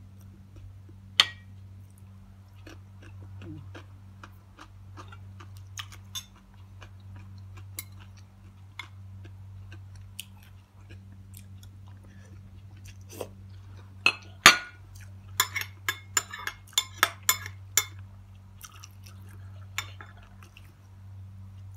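Metal spoon clinking and scraping against a glass bowl and plate while eating, with chewing between; a quick run of sharp clinks comes a little past the middle. A steady low hum runs underneath.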